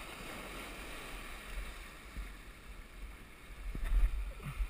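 Surf washing over and around shoreline rocks in a steady rush, with wind buffeting the microphone in low rumbling gusts, strongest about four seconds in.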